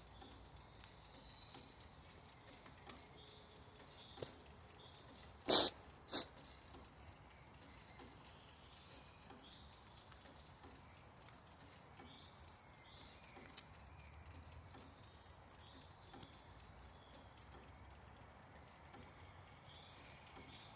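Quiet outdoor ambience with faint high chirps now and then, and two sharp knocks about half a second apart, roughly five and a half seconds in.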